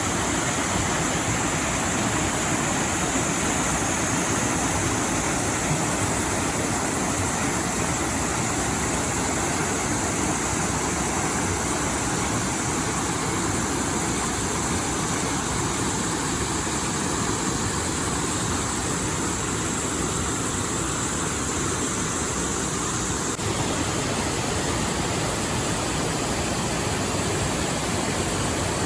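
Rushing water of a mountain river, a steady even noise; its character shifts abruptly about 23 seconds in.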